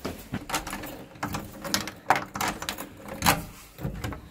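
Quick footsteps climbing stone stairs, two or three steps a second and uneven, ending with a door being opened near the end.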